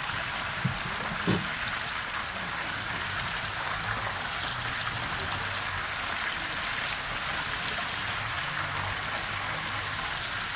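Spring rolls deep-frying in a stainless-steel basket fryer: the hot oil sizzles steadily, with two soft knocks about a second in.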